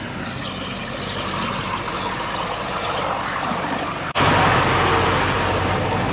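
Diesel engine of a wheeled tractor with a front plough blade driving past close by. It grows louder and steps up sharply about four seconds in.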